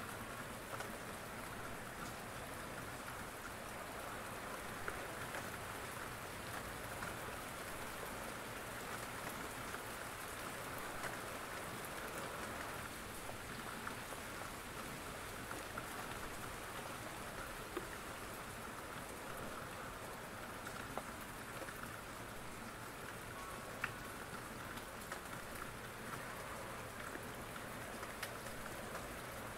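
Steady rain falling, with scattered drips and a few light ticks.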